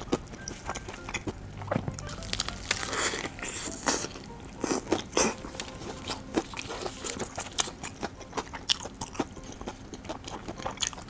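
Close-up biting and chewing of a crispy breaded fried-chicken burger, the coating crunching in many irregular crackles, with a cluster of louder crunches a few seconds in.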